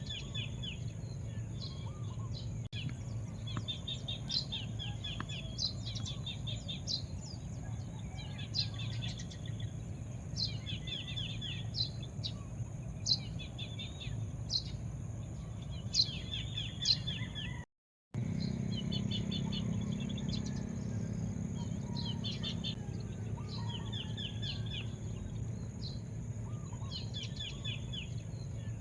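Small birds chirping, repeating short trilled phrases and sharp high notes, over a steady low background rumble. The sound cuts out completely for a moment about 18 seconds in.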